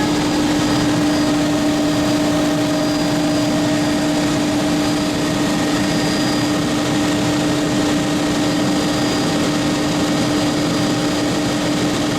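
Tour helicopter's engine and rotor running steadily, a constant loud drone with a steady hum, as heard inside the cabin.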